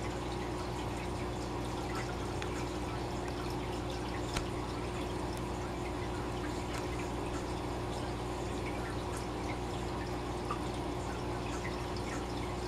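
Aquarium air stones bubbling: a steady rush of air bubbles rising through the tank water, with scattered small pops and drips, over a steady low hum.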